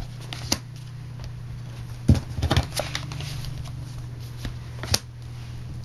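Playing cards being handled and laid on a wooden table: a few sharp clicks and taps, with a cluster of them about two seconds in, over a steady low hum.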